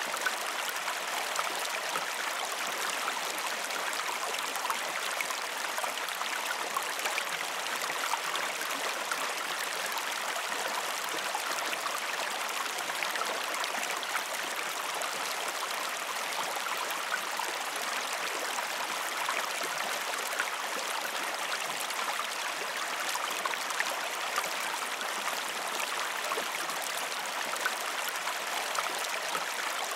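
A calm river flowing, a steady, even rush of moving water over a shallow rocky bed.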